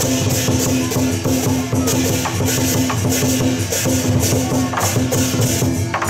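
Southern lion-dance percussion band playing: a big drum beating with cymbals clashing in a fast, steady rhythm and a gong-like tone ringing underneath.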